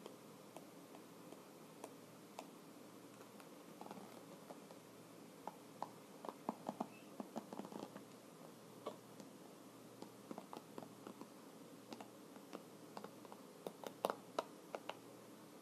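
Fingers typing and tapping on a computer keyboard in soft, scattered clicks, with denser flurries of keystrokes about six seconds in and again near the end.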